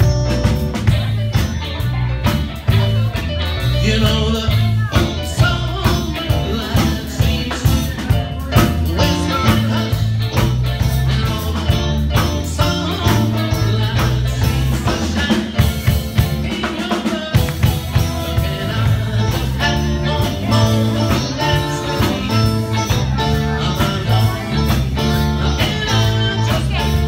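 Live rock band playing: electric guitars over a bass line and drum kit, with keyboards.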